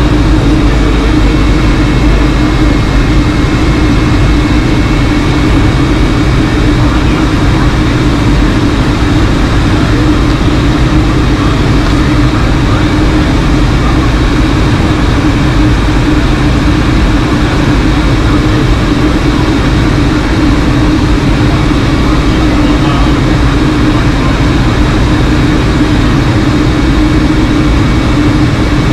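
Steady in-flight cabin drone of a Boeing 757-200, from its Rolls-Royce RB211-535E4 turbofans and rushing airflow. There is a steady low hum under an even rush, with a faint high whine on top.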